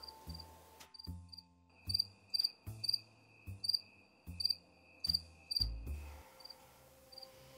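Crickets chirping in short, regular pulses, with a thin steady high tone through the middle of the stretch. Underneath runs a series of short low thuds about every half second to second.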